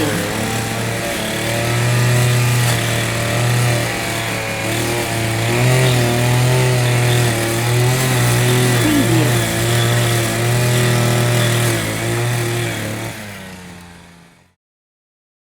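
Small engine-driven cutting machine running steadily, its pitch wavering now and then, fading out near the end.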